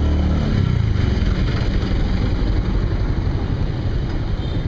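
Kawasaki cruiser motorcycle engine running under the rider, its revs easing off in the first second and then settling into a steady low rumble as the bike rolls on.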